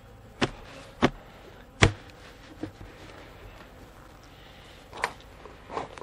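A few sharp wooden knocks and clacks at irregular intervals, the loudest about two seconds in, as wooden beehive boxes and lids are handled and pried apart.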